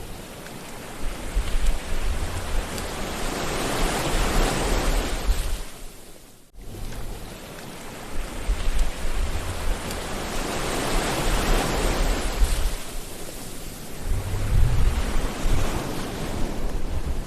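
Sea waves washing in: two slow swells of surf, each building over a few seconds and then ebbing away, with a sudden brief break in the sound about six and a half seconds in.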